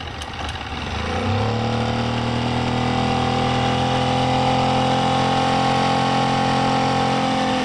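Boat motor opened up to full throttle: it picks up speed about a second in, then runs steady and loud at high revs. The owners say the motor won't run properly.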